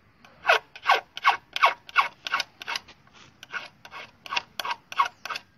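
Hand file rasping back and forth over the flattened tip of a steel nail, about three even strokes a second, thinning the tip down to shape a homemade drill bit.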